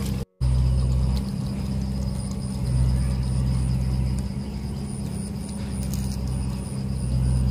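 A steady low mechanical rumble with an even hum, cutting out for a moment near the start.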